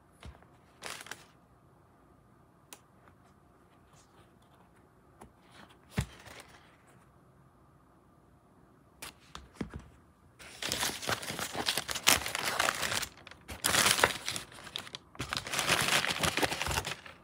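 Tissue paper in a shoe box crinkling and rustling as a sneaker is handled against it, in three long loud stretches in the second half, after a few faint clicks and a short rustle earlier.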